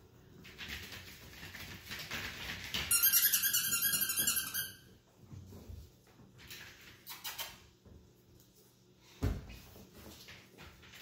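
Chihuahua puppies playing with plush toys on a tile floor: scuffling, then about two seconds of rapid, high-pitched squeaking a few seconds in. A single low thump comes near the end.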